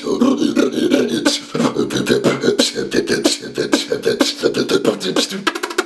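Solo beatboxing: fast mouth-made drum hits and hi-hat clicks over a steady hummed pitch, speeding into a rapid roll near the end.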